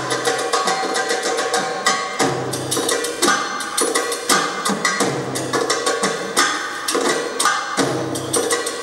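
Belly dance music led by fast, dense drum strikes, over a low note that comes and goes.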